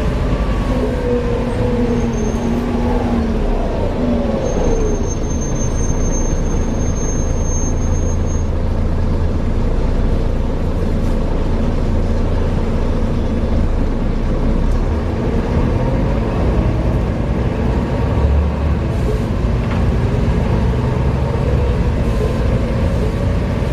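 Volvo B7TL double-decker bus running on the road, heard from on board: the diesel engine and drivetrain drone steadily, with the engine's pitch sliding down in the first few seconds and a thin high whistle for a few seconds about four seconds in. The drivetrain makes the knocking and ticking noises that the uploader puts down to a bad differential.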